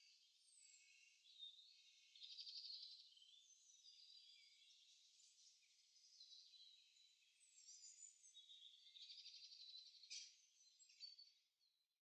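Faint chorus of several small songbirds singing at once: overlapping rapid trills and high, falling whistled phrases. The song fades out near the end.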